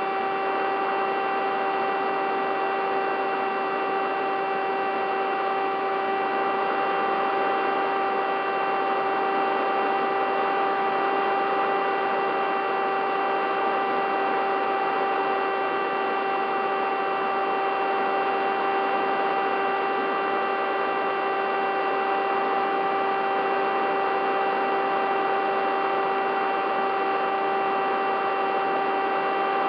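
Bixler 3 model plane's electric motor and pusher propeller running at a steady throttle, heard from the onboard camera: a constant, unchanging drone-like whine over rushing air noise.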